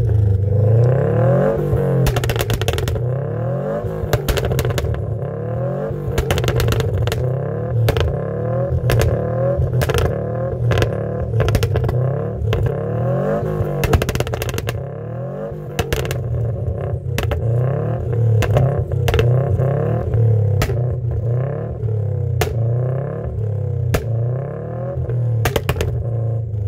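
Subaru Impreza WRX STI's turbocharged flat-four revved hard through its exhaust over and over, the pitch climbing and dropping about once a second, with frequent sharp cracks from the exhaust between revs.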